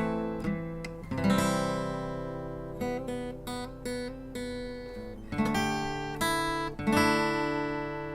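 Outro music: acoustic guitar strumming chords, each left to ring out before the next strum.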